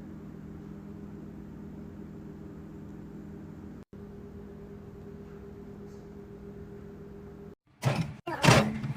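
A steady machine hum with a few held low tones, broken off briefly about four seconds in. Near the end it stops and a few loud, sudden sounds follow.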